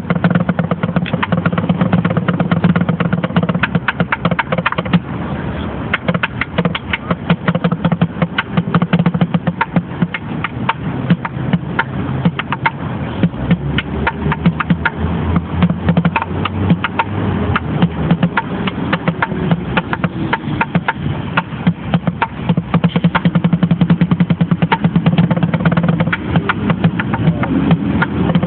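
Street drumming with sticks on an upturned plastic bucket: fast, dense strikes and rolls kept up almost without a break, with a hollow low body tone.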